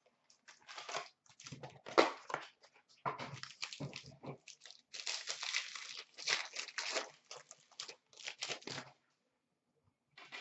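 Hockey trading card packaging being torn open and crinkled by hand: a run of crackling and rustling that stops about nine seconds in.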